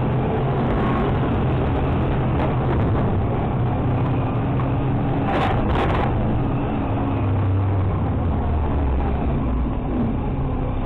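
Automated side-loader trash truck's diesel engine and hydraulics running under load while the packer blade sweeps trash out of the hopper, the engine hum shifting in pitch partway through. Two sharp metallic clanks come about five and a half seconds in.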